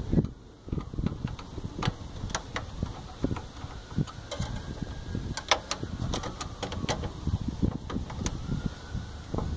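Irregular clicks and light knocks of hands and wires working inside a metal electrical panel, over an uneven low rumble.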